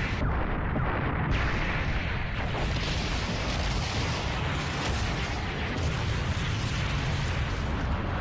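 Anime explosion sound effects: a continuous deep rumble of blasts, with no single sharp bang standing out.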